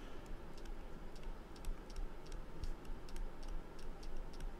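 Stylus tapping and scratching on a pen tablet during handwriting: a run of irregular light clicks, several a second, over a low steady hum.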